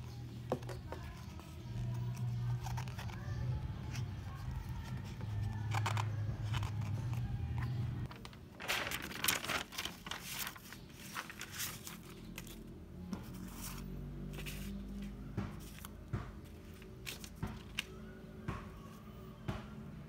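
Paper rustling and crinkling as sheets are folded, moved and laid down by hand. The crackling is thickest about nine seconds in, then scattered crackles follow. A low steady hum runs underneath and stops about eight seconds in.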